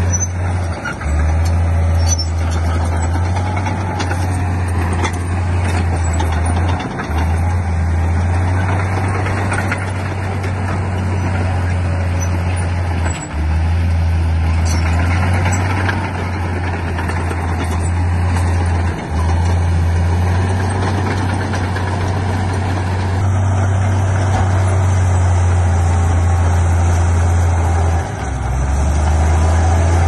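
Heavy diesel earthmoving machinery running: a deep, steady engine drone with a noisy mechanical clatter above it, dipping briefly every six seconds or so.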